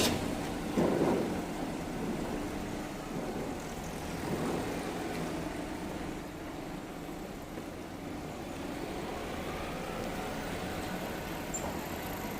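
Setagaya Line 300-series tram passing over the level crossing and moving away: a last clatter about a second in, then a steady low rumble that settles into road-traffic noise.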